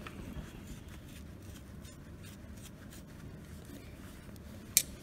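Faint metallic clicks and scrapes of a screwdriver working a set screw on a sewing machine's main shaft, with one sharp click near the end.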